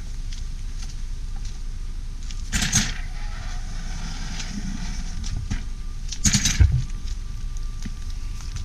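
Two short clattering knocks, about two and a half and six seconds in, as the bamboo train's wooden platform is set onto its axles on the rails, over a steady low rumble.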